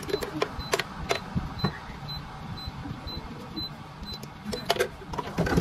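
Clicks and knocks of a clear plastic dome lid being pressed onto a plastic drink cup, with a short high electronic beep repeating about twice a second until near the end.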